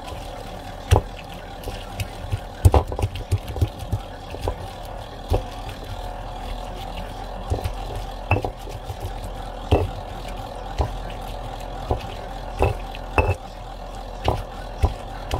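Stone pestle knocking and grinding against a volcanic-stone molcajete, crushing roasted serrano chiles, onion and garlic into salsa: irregular sharp knocks about once a second over a steady low hum.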